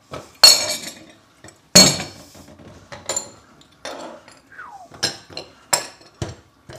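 Kitchenware clattering on a stainless-steel gas hob: a series of sharp clinks and knocks about a second apart, some with a brief metallic ring.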